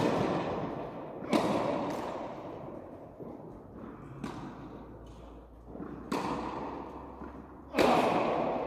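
Tennis ball being hit by rackets and bouncing on an indoor court: sharp pops, each ringing on in a long echo through the hall. Four loud hits, with a long quieter stretch between the second and third, and a couple of softer knocks in between.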